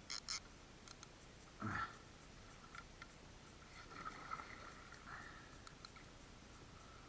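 Faint handling noise of fishing tackle aboard a kayak: a quick run of sharp clicks at the start and one dull knock about two seconds in, otherwise mostly quiet.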